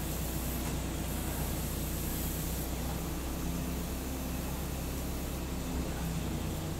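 Bucket truck's engine idling steadily: a low, even hum under a constant hiss.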